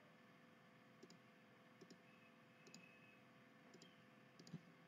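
Faint computer mouse clicks, about six spaced out roughly a second apart, over quiet room tone with a faint steady hum.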